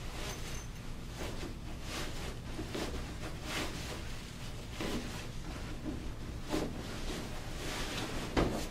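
Fabric rustling and swishing in irregular strokes as a pet-bed pillow is pushed and worked into its zippered cloth cover.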